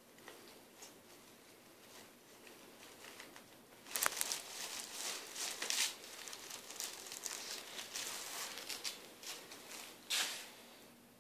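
Plastic bin liner crinkling and rustling as a puppy paws and noses into the wastebasket after a hand brush. It is faint at first, turns loud and crackly about four seconds in, and ends with a last sharp burst of crinkling near the end.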